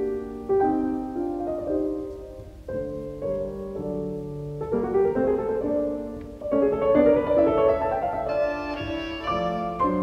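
Instrumental background music: sustained pitched notes that change every half second or so, with two brief dips in loudness.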